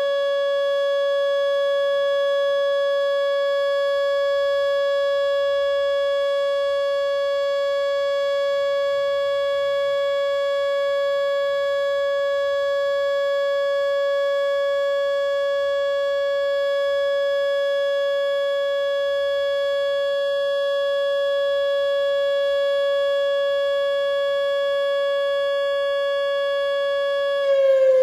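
Whelen WPS-2910 electronic outdoor warning siren sounding its steady Alert tone close up: one held pitch with overtones, really loud. Just before the end the pitch starts to fall as the siren winds down.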